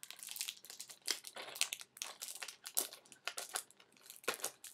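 Crinkling and crackling of packaging as a small cardboard product box is picked at and worked open by hand, in irregular bursts with a brief lull near the end.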